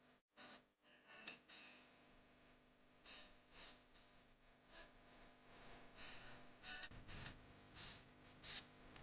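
Keys pressed on an agio A108 mechanical keyboard: quiet, irregular clacks, a few a second.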